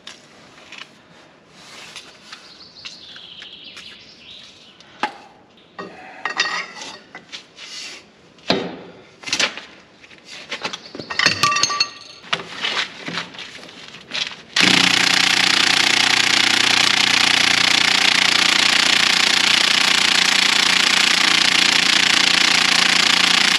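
Cordless impact wrench hammering steadily on a very tight tine-holder bolt of a rotary harrow, starting about fifteen seconds in and running for about nine seconds. Before it, scattered clinks and knocks of metal tools being handled.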